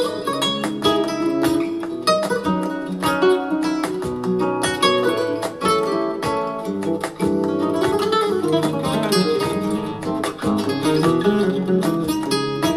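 Guitar music with quick plucked notes, played from a CD in a Kenwood DP-520 CD player.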